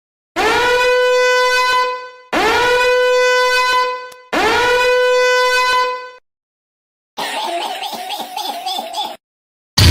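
A horn-like sound effect blasts three times in a row. Each blast lasts about two seconds, scoops up into one steady pitch, and is separated from the next by a short silence. Near the end comes a different, rougher sound of about two seconds.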